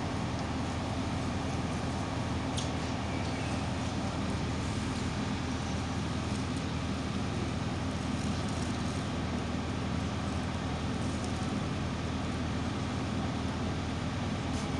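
Engine of road-repair machinery running steadily, a constant low drone with a few faint ticks over it.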